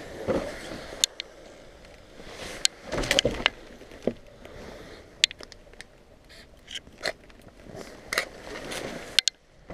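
Scattered scuffs, scrapes and sharp clicks and knocks of a person moving through a cluttered, debris-strewn room, with a louder stretch of scraping about three seconds in.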